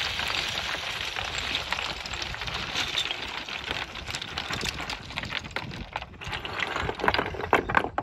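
Boots stepping down a steep slope of loose scree: gravel and stones slide underfoot in a continuous rushing hiss. Sharp clacks of rock striking rock come thicker and louder near the end.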